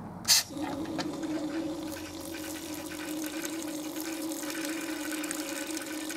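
Mains water running through a McAllister petrol pressure washer and out of the open lance with the engine off, purging air from the system: a sudden spurt about a third of a second in, then a steady rush of water with a low steady tone.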